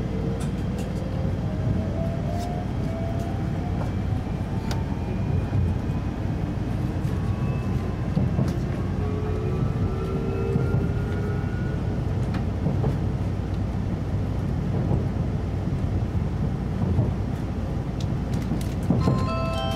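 JR Shikoku 8600 series electric train accelerating away from a station, heard from inside the carriage. The inverter and traction motors give a whine that rises slowly in pitch over about ten seconds, over a steady low rumble of wheels on rail. Near the end a chime starts.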